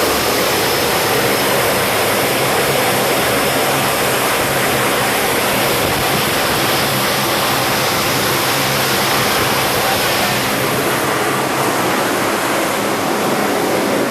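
Steady, loud roar of the US-2 flying boat's turboprop engines, an even rushing sound that cuts off suddenly near the end.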